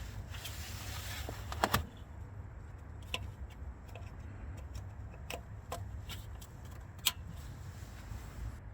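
A few sharp clicks and knocks, a double one about two seconds in and then single ones spread out, over a low steady hum.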